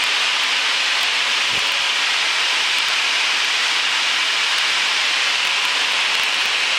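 Steady cockpit noise of a Grumman Tiger single-engine light plane in level cruise: the four-cylinder Lycoming engine and the airflow blend into one even hiss that does not change.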